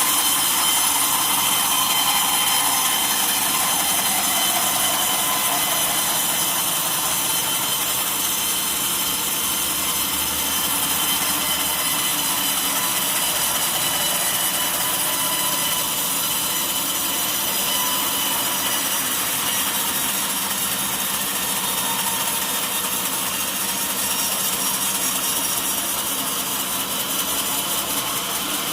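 Sawmill saw running through a mahogany log, a steady cutting noise with a constant high whine that holds without a break.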